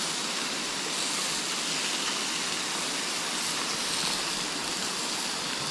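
Beef ribs sizzling on a hot portable gas grill, a steady hiss, mixed with the rushing of a creek.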